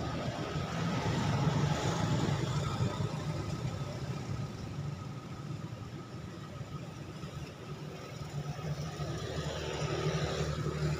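An engine running steadily with a low hum, which grows louder about nine seconds in.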